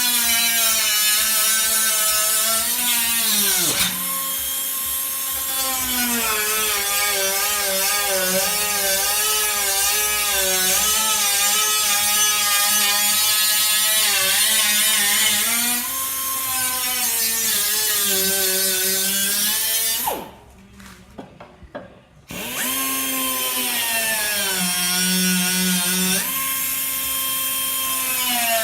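Power drill driving a cutter into car-body sheet metal, a continuous whine whose pitch wavers and dips as it loads up. It stops for about two seconds about two-thirds of the way through, then runs on. The owner says the drill has no power even after being rebuilt.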